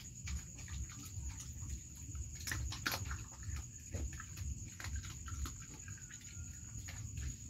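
A dog eating soft rice from a metal bowl: wet chewing and licking with quick, irregular clicks, and two sharper clicks about two and a half and three seconds in.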